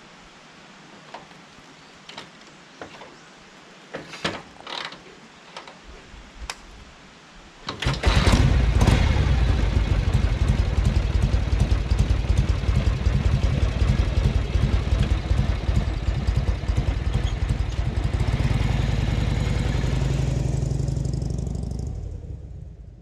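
A few light clicks and knocks, then about eight seconds in a Harley-Davidson Shovelhead V-twin engine starts and runs with a steady, fast low beat, fading away near the end.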